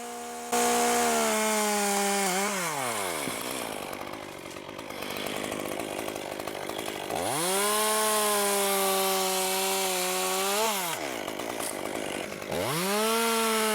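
Two-stroke chainsaw revved to full throttle three times, several seconds each, cutting dead ash limbs, the engine note sagging a little under load and then falling back to idle between cuts.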